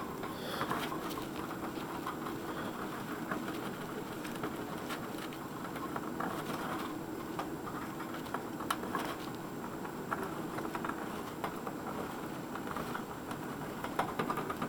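Pet hamster rustling and scratching through bedding material in its cage: a steady patter of small scratches and crinkles with scattered sharper clicks.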